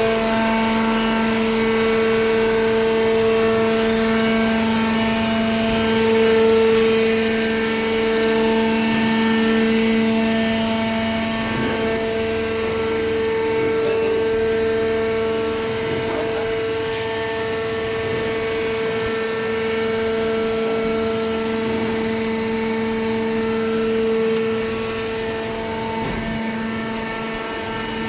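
Horizontal cardboard baler's hydraulic power unit running: a loud, steady, even-pitched hum with a whine above it, and a few faint knocks from the machine.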